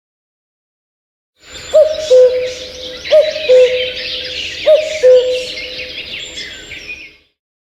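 Honor 7s nature-sound ringtone: twittering birdsong with a low two-note hooting call, the second note lower, heard three times. It starts after about a second and a half of silence and stops abruptly near the end.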